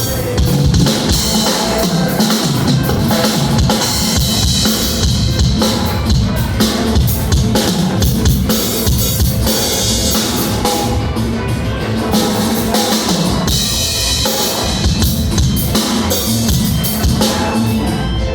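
Drum kit played without a break: bass drum, snare and cymbals struck in quick succession.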